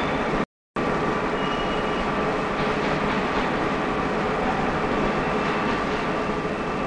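Steady machine-shop noise: a continuous mechanical hum and hiss from running machine tools with a few faint steady whine tones. It cuts out completely for a moment about half a second in.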